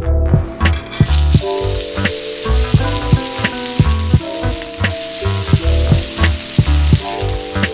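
Flank steak sizzling steadily in a hot cast iron skillet, the sizzle starting about a second in as the meat goes into the pan. Background music with a steady beat plays throughout.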